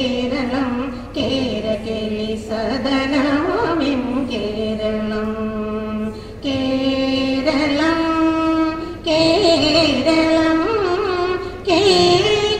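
A girl singing solo, holding long notes with slides and ornaments between them. About a second before the end, a different singer's voice comes in abruptly.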